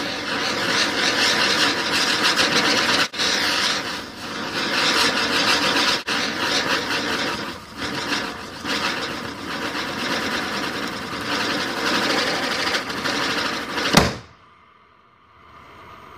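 Chakri ground-spinner firecracker burning as it spins on a fidget spinner, giving a loud rough hiss that surges and dips. Near the end it stops in one sharp bang, after which only a faint hum is left.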